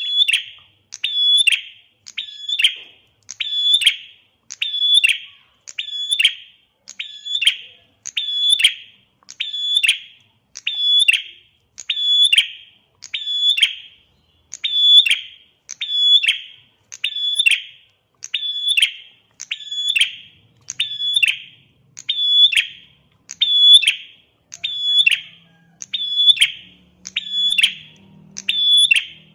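Prenjak (prinia) song: a sharp, high call repeated at a very even pace, about once a second, played to coax a ceplier prenjak into answering.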